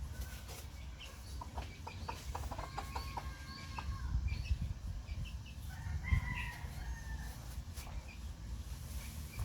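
Chickens clucking, with a rooster crowing, over a low rumble.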